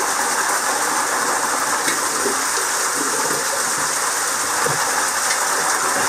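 Small spring waterfall pouring steadily down a rock face and splashing onto the rock below.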